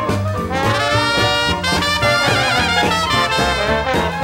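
Background music: swing jazz led by brass instruments over a steady beat.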